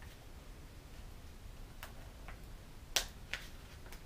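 Scissors snipping through wrapping paper and tape on a gift package: a few short, sharp clicks in the second half, the loudest about three seconds in.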